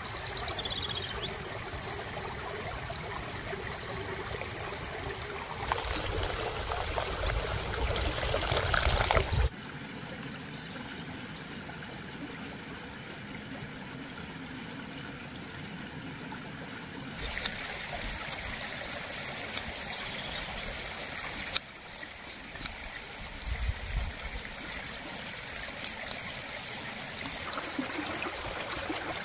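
Shallow stream trickling over stones, a steady watery hiss whose level shifts abruptly a few times. It grows louder, with a low rumble, from about six to nine seconds in.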